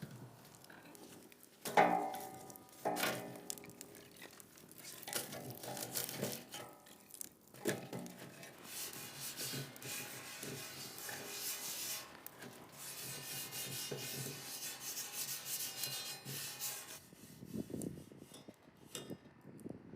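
Raw meat and vegetables being pushed onto skewers, a rubbing and scraping sound with a couple of sharp knocks about two and three seconds in, then dense steady scraping for most of the second half.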